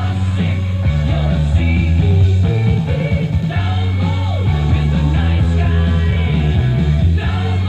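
Rock-style music from a broadcast station playing through the Zenith Y832 Symphonaire tube radio's loudspeaker, picked up by a microphone in the room, with a strong, steady bass line.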